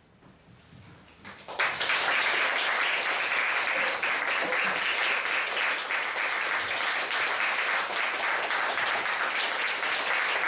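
Quiet for about a second and a half, then the audience starts applauding all at once and keeps clapping steadily.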